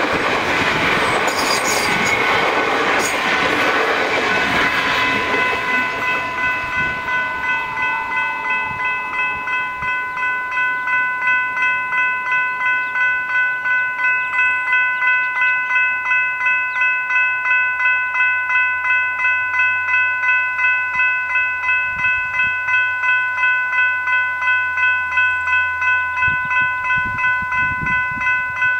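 Level crossing electronic bells (General Signals Type 3 e-bells) ringing in rapid, even strokes while the crossing stays activated. At first they ring over the noise of a suburban electric train running through the crossing, which fades away over the first several seconds and leaves the bells alone.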